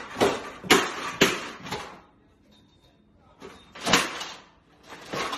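A run of hopping thumps from a person jumping on a floor lamp's base: four quick ones about half a second apart, then a pause, then two more near the end.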